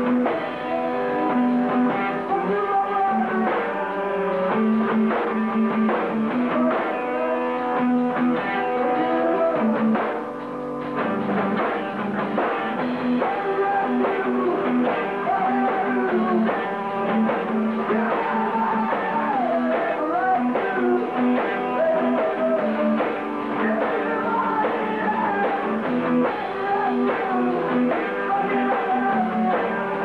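Rock band playing live, electric guitar and drum kit, recorded dull and muffled with little treble.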